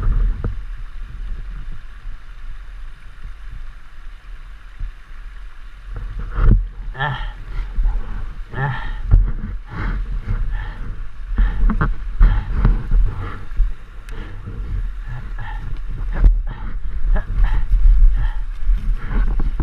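Knocks and scrapes of a fallen GasGas enduro motorcycle being handled and dragged, mostly from about six seconds in, with heavy breathing and grunts from the rider. A low rumble of wind and handling noise on the helmet camera runs underneath.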